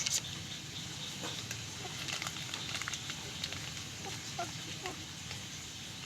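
A few short, soft chicken calls about four to five seconds in, among scattered clicks and crackling.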